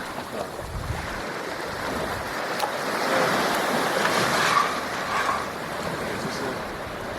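Ocean surf washing onto the beach: a steady rush of waves that swells a little in the middle.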